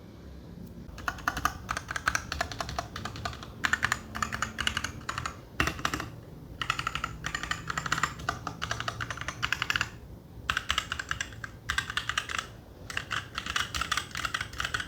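Fast typing on an RK61 60% mechanical keyboard with brown (tactile) switches: dense runs of key clicks and clacks, broken by a few short pauses.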